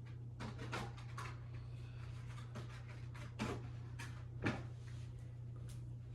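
Scattered rustles, scrapes and light knocks of a die-cast model airliner's cardboard box and packaging being handled and opened, with two slightly louder knocks in the middle. A steady low hum runs underneath.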